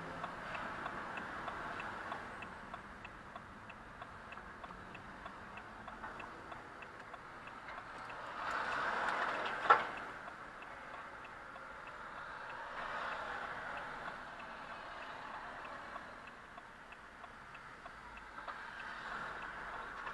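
A car's turn-signal indicator ticking steadily inside the cabin over low traffic noise. Just before halfway there is a swell of passing-traffic noise and one sharp knock.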